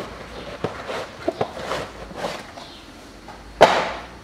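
A new air filter being taken out of its cardboard box: a few small clicks and rustles of cardboard and paper, then a loud short rustling scrape about three and a half seconds in as the filter comes free.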